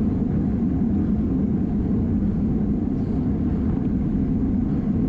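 Steady wind rumble on an action camera's microphone on a bicycle moving at racing speed.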